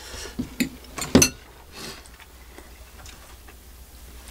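A fork and a white ceramic noodle bowl clinking and knocking a few times within the first second and a half, short sharp clicks of metal and china.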